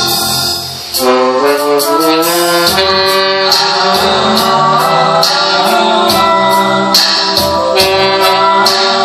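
Band music with a steady beat; it dips briefly just under a second in, then the full band comes back in.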